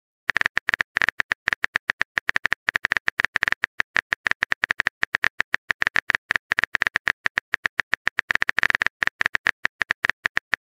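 Rapid phone-keyboard tap clicks, about ten a second, one per letter as a text message is typed out.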